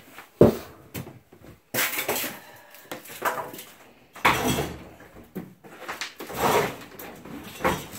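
Old washing machine being worked out of its alcove: a sharp knock about half a second in, then irregular bursts of scraping and clattering as it is rocked and dragged across the floor.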